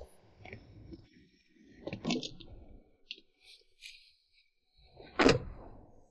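Small clicks and rustles of someone getting into a car, then a car door shut with one sharp, loud thud about five seconds in.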